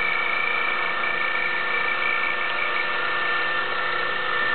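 Milling machine running steadily as the end mill cuts a slot in aluminum, with a steady high whine.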